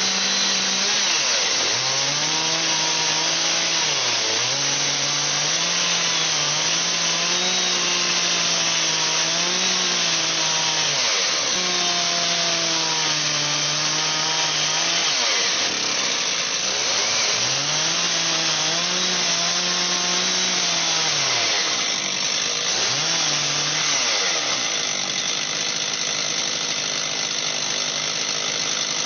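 Chainsaw engine running hard while cutting wood, with a dense cutting hiss. Its pitch sags and climbs back again and again as the chain loads up in the cut and frees.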